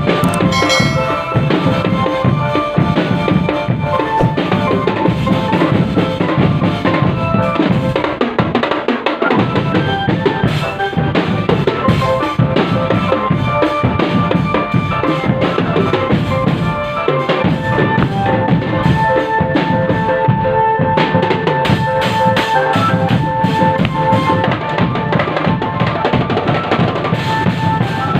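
Street drum band playing: dense, continuous marching percussion of bass drums and snares, with a melody of held notes over the beat.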